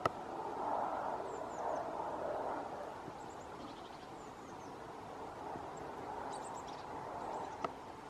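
Two single sharp taps, likely a great spotted woodpecker's bill striking the tree trunk, one right at the start and one near the end, over a steady background hum. Faint, thin, high chirps of other birds come several times in between.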